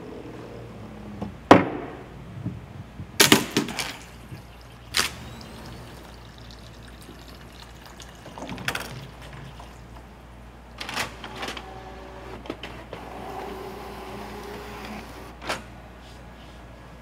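A chain-reaction contraption running: a series of sharp knocks and clicks as small objects strike and trip one another, about eight in all at irregular spacing, the loudest about a second and a half in. A steady low hum lies under it.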